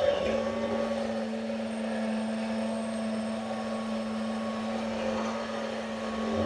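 Immersion blender running with a steady motor hum, blending egg yolk into hollandaise sauce.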